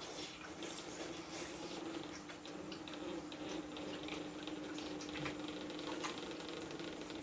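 A person eating soup from a stainless steel bowl: scattered light clicks of a metal spoon against the bowl and soft wet eating sounds, over a steady hum.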